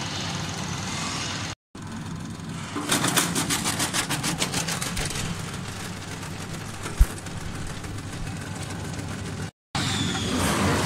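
Electric vegetable cutting machine running with a steady motor hum. For about two seconds its blades chop through vegetables in a fast, even clatter of roughly ten strokes a second, and there is one sharp knock a little later. The sound cuts out briefly twice.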